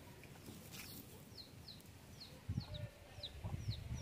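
A small bird repeating a short, high, falling chirp about three times a second, starting about a second in, with a faint low rumble underneath in the second half.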